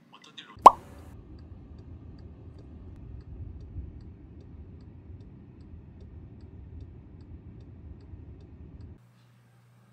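A single sharp click with a quick falling tone about a second in, then a steady low outdoor rumble with faint, regularly spaced ticks over it, which cuts off abruptly near the end.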